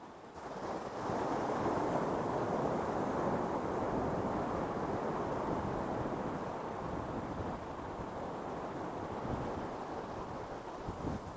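Ocean surf on a beach: a wave breaks about half a second in and its wash slowly fades away.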